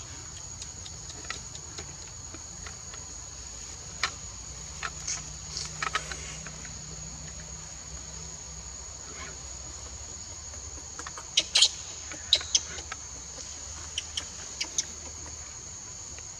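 Steady high-pitched drone of insects, broken by scattered short sharp chirps, the loudest coming in a quick cluster about eleven to twelve seconds in.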